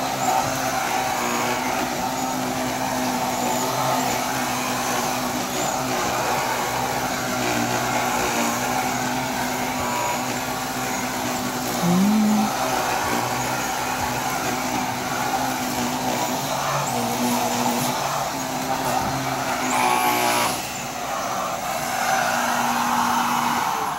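Vacuum cleaner running steadily through a mini power nozzle, the small motorized brush attachment, as it is worked over upholstery.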